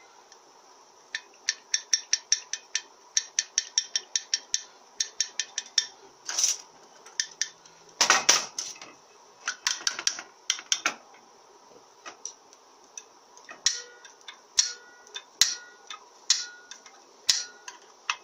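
Light metallic taps and clicks, a quick run of about four a second for a few seconds, then scattered knocks, some with a short ring. A steel screwdriver or pick is tapping and prying at the aluminium valve body of a Mazda FN4A-EL automatic transmission to free its stuck main pressure regulator valve.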